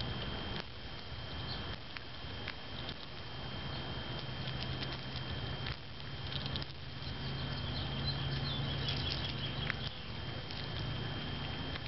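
White-tailed antelope squirrel cracking sunflower seeds open with its teeth: scattered small, irregular clicks and crunches, with a quick flurry of faint crackling near the end.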